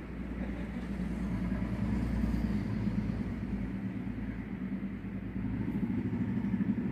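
A steady low mechanical hum, like an engine or motor running, with a deeper rumble for the first few seconds.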